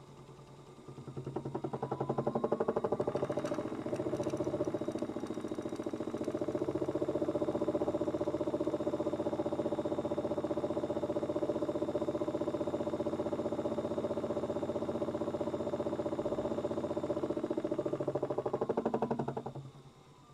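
Miele W1 toy washing machine, modified, running an unbalanced spin: its small motor spins up about a second in, runs steadily with a fast rattling vibration from the off-balance drum, then winds down near the end.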